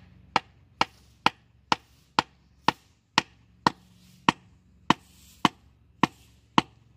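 A wooden board hammering down on the end of a metal tube, thirteen sharp knocks at about two a second. The blows drive the tube into the broken ski pole's shaft to join the two halves.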